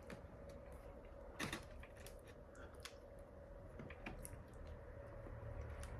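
Faint eating and food-handling sounds: scattered small clicks and creaks, with one louder click about a second and a half in, as a piece of cocoa bread is picked up and tasted.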